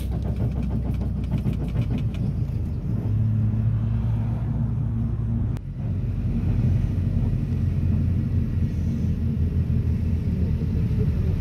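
Steady low rumble of a minibus engine and road noise, heard from inside the cabin while driving, with a held engine drone in the middle that briefly drops a little past halfway.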